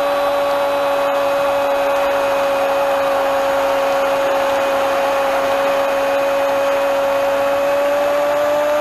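Football stadium crowd cheering in a steady, unbroken roar after a goal, with a constant whining tone running through it.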